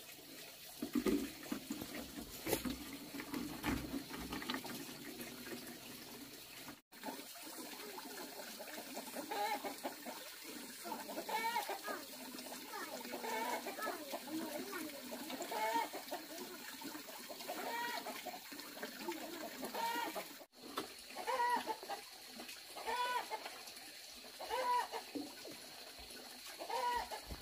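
Chickens clucking: a string of short calls, each rising and falling in pitch, repeating every second or two through the second half, with two abrupt cut-offs.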